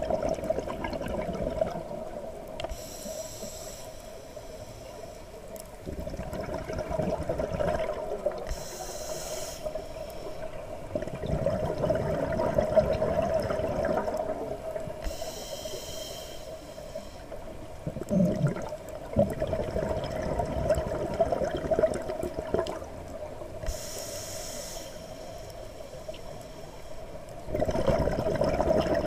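Scuba diver breathing through a regulator underwater: four short hissing inhales several seconds apart, with a longer rushing noise of exhaled bubbles between them.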